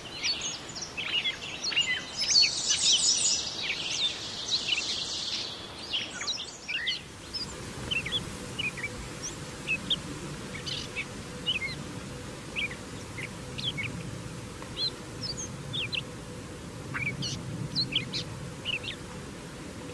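Gray catbird singing a rapid, jumbled run of varied high phrases, which stops about six seconds in. After that only short high chirps come, scattered through the rest.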